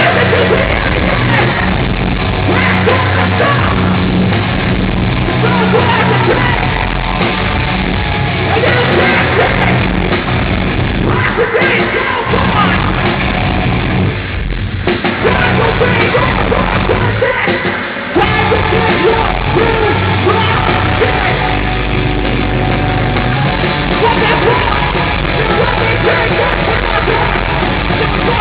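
Loud heavy rock band playing live with yelled vocals, with a brief break about halfway through and another near two-thirds of the way in.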